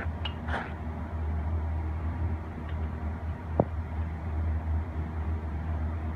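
Wooden rolling pin working a stuffed aloo paratha on a wooden board: faint rubbing and one sharp knock of the pin about three and a half seconds in, over a steady low hum.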